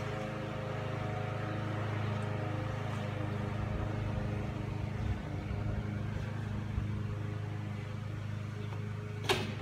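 A motor or engine running steadily with a low hum. A single sharp click comes shortly before the end.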